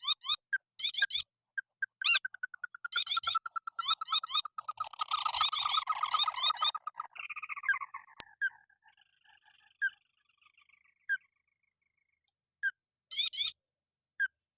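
Paddy-field rail calls: clusters of quick, squeaky rising notes repeated in bursts, running together into a dense chatter about two to seven seconds in, then thinning out.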